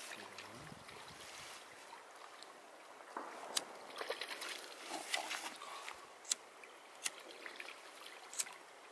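Small clicks and rustles of hands handling fishing line, a metal swivel and a lead sinker, scattered from about three seconds in, over a faint steady hiss of running water.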